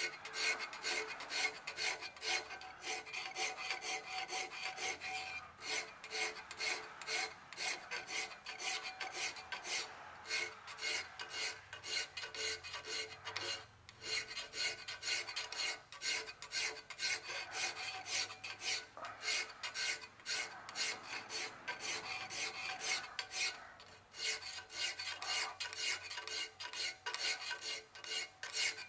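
Hand file being stroked across the parting line of a metal flywheel casting, filing it down to a flat edge. The strokes come in a steady, even rhythm with long back-and-forth sweeps.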